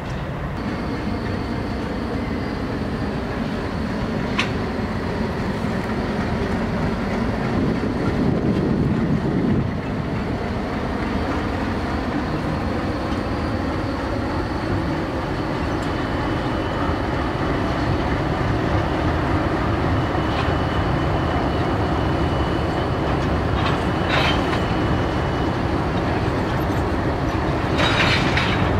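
Alco diesel locomotives rumbling steadily as they roll past on the track, with a few sharp clicks from the wheels over the rail.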